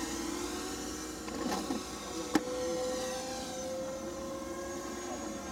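Mini FPV racing quadcopter's brushless motors and propellers whining steadily in flight, the pitch drifting slightly upward. A single sharp click about two and a half seconds in.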